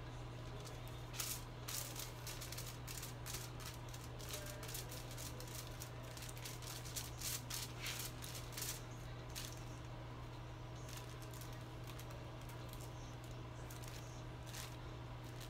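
Aluminium hair foil crinkling in a run of short crackles as purple hair colour is brushed onto a section of hair laid on it, busiest in the first two-thirds, over a steady low hum.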